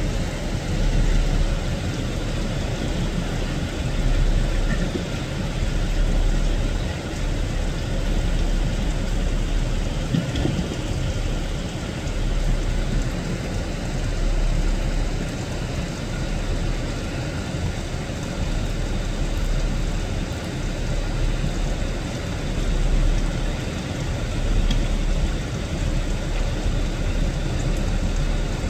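Rain falling steadily, with a continuous low rumble underneath that swells and fades every few seconds.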